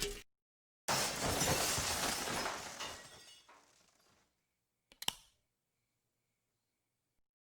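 Glass shattering: a sudden loud crash about a second in, the breaking fading out over about three seconds. A single sharp clink follows about five seconds in.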